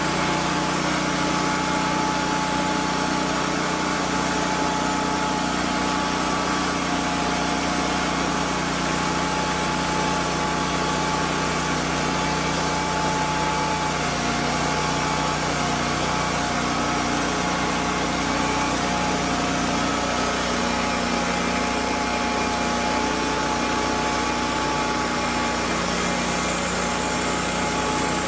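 Portable band sawmill running steadily: its engine and band blade make a constant drone with a few steady whining tones over it.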